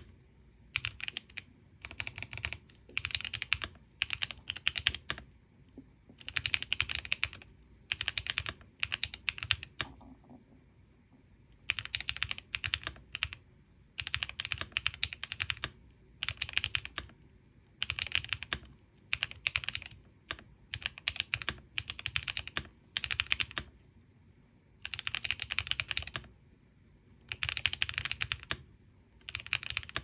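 Mechanical keyboard with Hyacinth V2 switches being typed on, rapid keystrokes in bursts of a second or two with short pauses between, and longer breaks about a third and three quarters of the way through.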